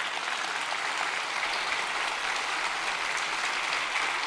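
Congregation applauding steadily, a dense sustained clapping that swells just before and holds through.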